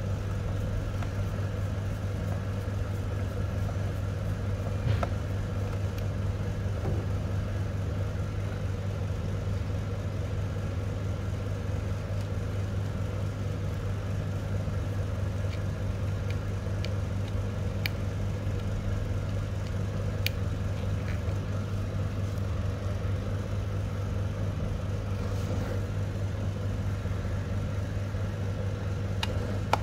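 Steady low mechanical hum from the Kyocera TASKalfa 5052ci copier standing open and powered, with a few faint clicks.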